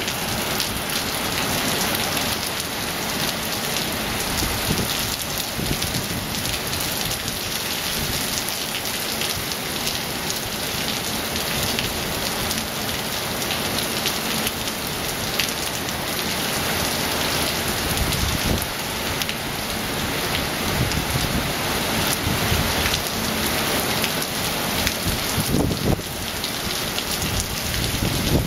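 Heavy rain pouring steadily onto wet paving, a dense even hiss of a downpour.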